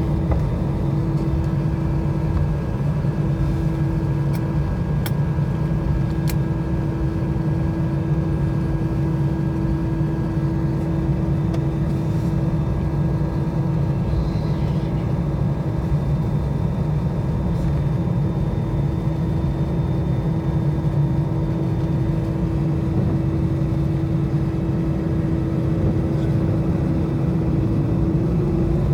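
Steady drone inside an Airbus A320's cabin on the ground after landing: the idling engines and the cabin air system, with a low hum and a few held tones. Two faint clicks sound about five and six seconds in.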